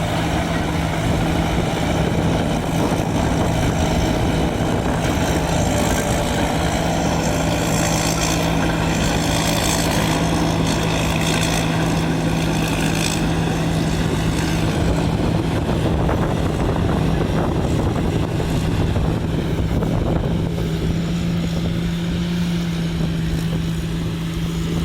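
Large rice combine harvester running steadily: a continuous engine drone with a constant low hum and no change in speed.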